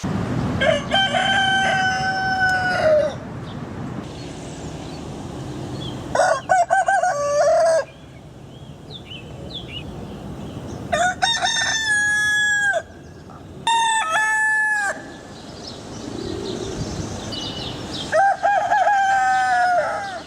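Rooster crowing five times, each crow a long cock-a-doodle-doo of one to two and a half seconds, with a low rumble of background noise between crows.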